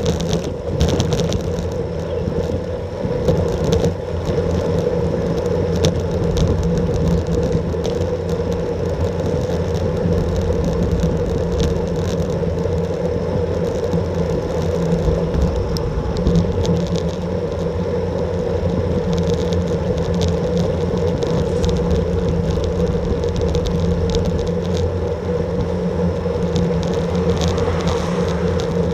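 Steady wind and road noise from a bicycle ridden at about 25–28 km/h, as picked up by an action camera riding on the bike, with a constant low hum and scattered faint ticks.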